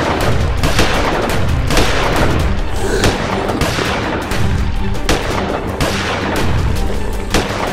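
A string of gunshot sound effects, one sharp shot after another at uneven intervals, over background music.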